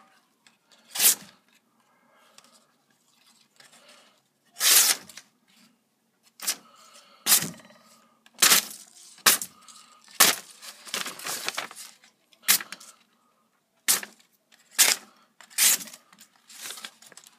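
A very sharp N690-steel fixed-blade knife with a full flat grind slicing through sheets of paper: about a dozen quick cutting strokes, each a short crisp swish, some in quick pairs.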